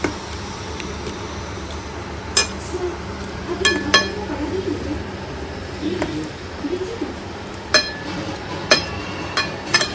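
Hand mixing hilsa pieces into a thick yogurt, mustard and poppy-seed paste in a metal kadai, the pan giving a handful of sharp, ringing metallic clinks as the hand knocks against it.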